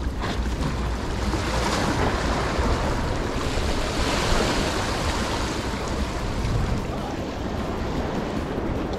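Small waves washing and foaming over shoreline rocks, swelling louder twice, about two and four seconds in, with wind buffeting the microphone.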